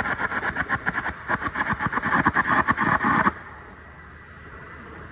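Electric welding arc crackling and sputtering in a fast, dense stream of clicks, cutting off abruptly a little over three seconds in as the arc is broken.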